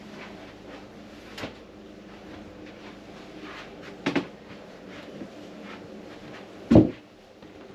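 Wooden cabinetry knocking as doors are handled: a light click about a second and a half in, a quick double knock around four seconds, and a heavier, deeper thump near the end. A steady low hum runs underneath.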